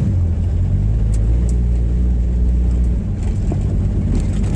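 A 1962 Rambler Classic's engine running as the car creeps along at a few miles an hour, with a few faint ticks over the steady low engine note. The engine still hesitates a little.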